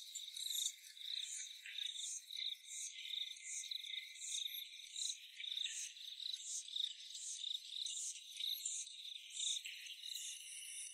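Crickets chirping in a steady, even rhythm: high chirps repeating about three times every two seconds, with quicker chirps beneath them.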